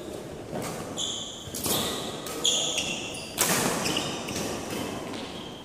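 Badminton rackets striking a shuttlecock in a rally, about five sharp hits under a second apart, with players' shoes squeaking on the court floor.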